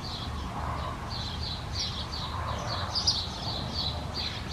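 A bird chirping over and over, quick high notes several times a second, over a low steady hum.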